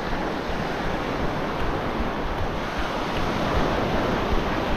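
Small ocean waves breaking and washing up a sandy shore, a steady surf wash, with wind buffeting the microphone.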